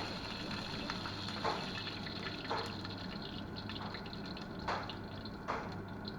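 Liquid sounds: a few separate drips or splashes, about one a second, over a steady low hum.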